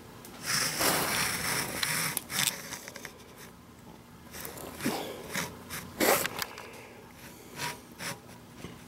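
Steel digital caliper rubbing and scraping as it is slid and clamped on a machined metal part, loudest in the first couple of seconds, followed by a few sharp clicks of handling.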